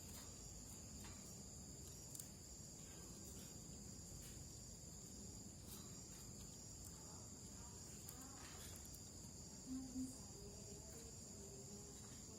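Steady high-pitched chirring of crickets. About ten seconds in comes a soft double thump.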